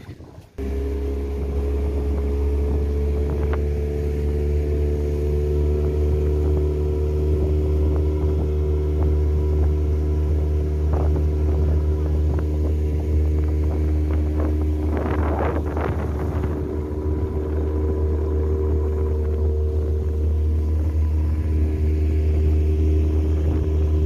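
Outboard motor of a small open boat running steadily under way: a low drone with a few steady tones above it that cuts in just after the start. A brief rush of noise about two-thirds of the way through.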